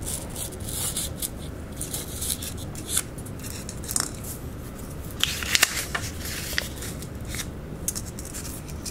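Light scratching, scraping and scattered small clicks of hands working at a bench, over a steady low hum.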